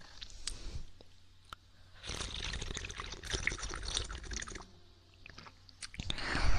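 Close-up ASMR ear-licking: wet mouth and tongue sounds, a few small clicks, then a stretch of dense crackling wetness. A louder, deeper wet rush starts near the end.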